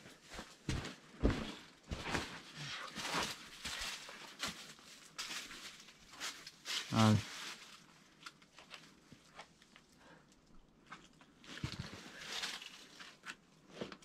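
A boulderer's forceful breaths, short hissy rushes one after another, with one short grunt of effort about seven seconds in, the loudest sound here. Light scuffs and taps of hands and climbing shoes on the rock come between them.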